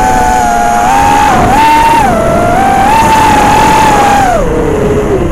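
FPV quadcopter's 2306 2750 kV brushless motors spinning 5-inch props, heard from the onboard camera: a loud whine whose pitch wavers up and down with the throttle, then drops sharply about four and a half seconds in as the throttle comes down.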